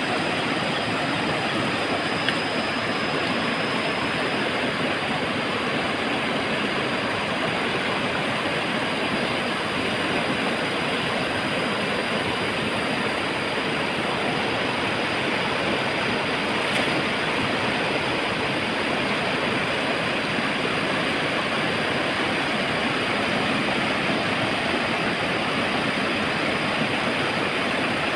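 Fast-flowing river rushing over rocks and rapids: a steady, unbroken rush of water.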